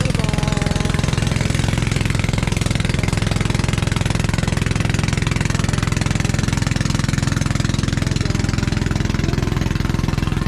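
Motorized outrigger boat (bangka) engine running steadily at close range, with a rapid, even firing beat that does not change.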